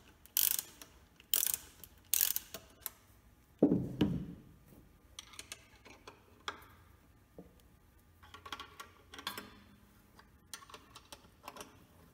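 Ratchet wrench clicking in three short bursts as it is swung back and forth, loosening the SU carburetor mounting nuts. Then comes a dull thump, the loudest sound, about four seconds in, followed by scattered faint metal clicks and scrapes as parts are handled.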